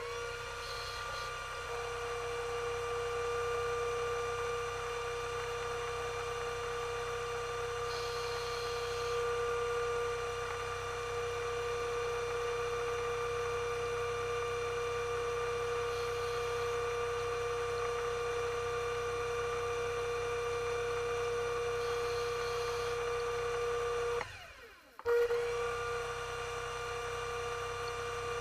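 Motor of a diver propulsion vehicle (underwater scooter), recorded underwater, running with a steady whine. About 24 seconds in it briefly cuts out, the pitch sliding down and back up, then runs on as before.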